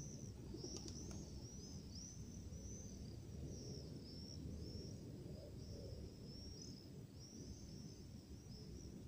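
Faint, steady twittering of small birds, short curving chirps repeating about twice a second, over a low background rumble, with two faint clicks about a second in.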